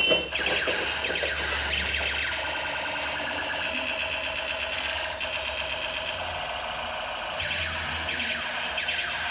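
Electronic sound effects from battery-powered light-up toys. Warbling, siren-like sweeps come just after the start and again about three-quarters through, with steady electronic tones between.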